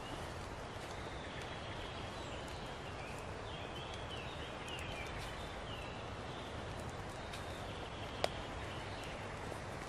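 Quiet woodland ambience: a steady low hiss, with faint bird chirps in the middle and one sharp click near the end.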